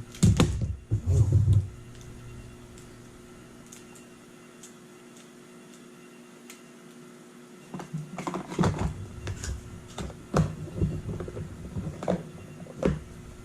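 A few dull bumps, then a faint steady hum; from a little past halfway, irregular light clicks and taps, about one or two a second.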